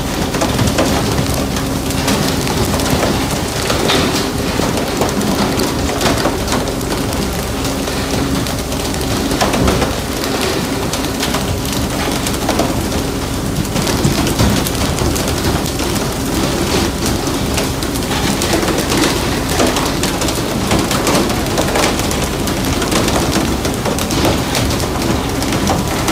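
Water spraying from a pole-and-line fishing boat's hull-side sprinklers and hissing onto the sea, over the steady hum of the ship's engine, with scattered knocks and clatters on deck.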